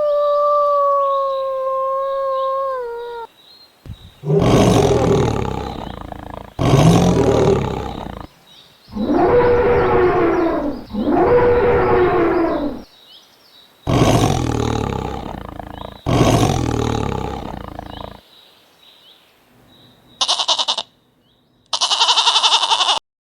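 A big cat roaring: six long, rough roars about two seconds each, one after another. They follow a held call with a clear, steady pitch that drops at its end. Near the end there are two short bursts of another animal sound.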